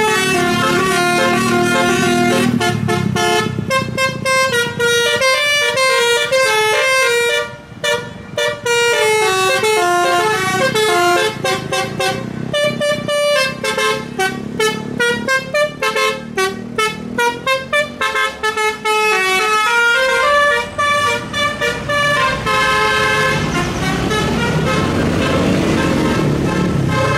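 A bus's basuri musical air horn playing a long melody, its notes stepping up and down, with quick short repeated notes through the middle, over the low running of the bus's diesel engine.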